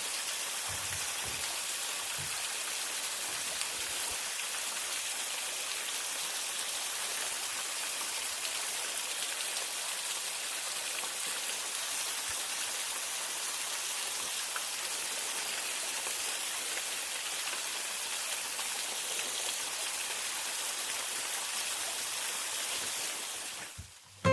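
Steady, even rush of water running at a frozen waterfall. It cuts off abruptly just before the end.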